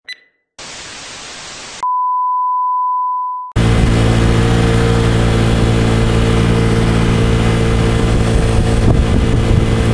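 A brief chime and a short hiss of static, then a steady high beep like a test tone that cuts off. About three and a half seconds in, a Vespa scooter's engine runs at a steady cruising speed, with wind rush over it.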